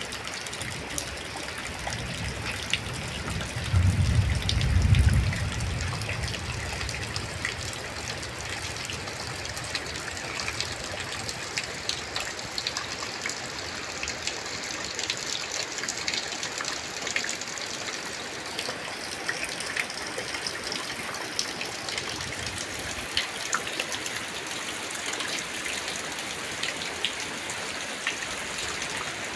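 Light rain falling steadily, with many small drop ticks, and a brief low rumble about four seconds in.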